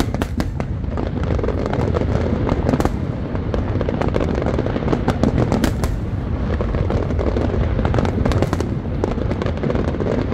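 Fireworks display going off: a dense, continuous barrage of sharp bangs and pops in quick succession over a steady low rumble.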